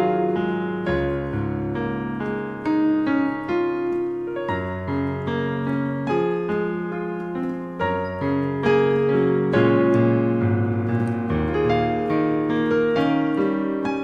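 Piano playing a melody over chords, with low left-hand bass notes held and changing every second or two.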